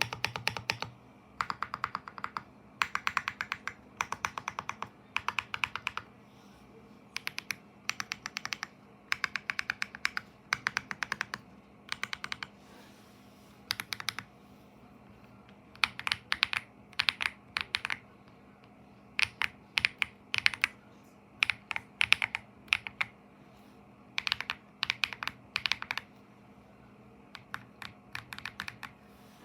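Typing on a Leobog Hi75 mechanical keyboard with MMD Princess tactile switches and PBT cherry-profile keycaps, modded with foam, tape and polyfill. Rapid keystrokes come in bursts of a second or two, separated by short pauses.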